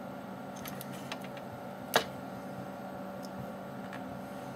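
Small clicks and taps of a screwdriver and screws on an opened laptop's chassis during reassembly, with one sharp click about two seconds in, over a steady low hum.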